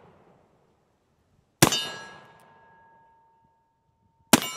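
Two shots from a Pietta 1873 .44 black powder cap-and-ball revolver, about three seconds apart, the pause of a single-action gun being cocked between shots. Each shot is followed by a metallic ringing that fades over about a second.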